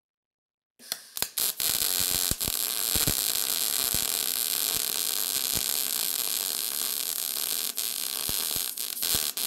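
Wire-feed welder arc crackling steadily while a bead is laid on a cracked steel truck frame. It strikes about a second in with a few sharp pops after a moment of dead silence.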